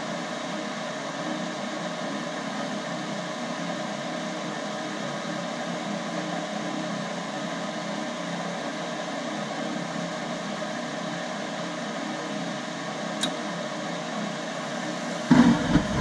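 Goodman gas furnace running steadily, its draft inducer motor humming while the burners light and fire on a newly replaced gas valve. There is a faint click about 13 s in. Near the end a louder, lower rumble sets in as the circulating blower comes on.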